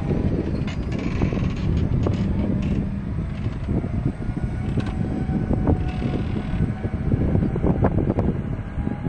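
John Deere 6215R tractor's six-cylinder diesel running under load as it turns on the headland, with the six-furrow reversible plough lifted and turning over. The engine runs as a steady rumble, with scattered knocks throughout.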